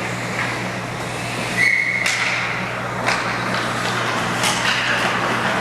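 Hockey rink ambience: a steady hum, with one short whistle blast about a second and a half in and a few sharp knocks later on.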